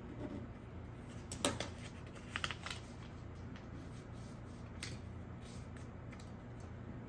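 Folded paper notes being handled and dropped into a glass jar: a few short clicks and rustles, the sharpest about a second and a half in and a quick cluster about a second later.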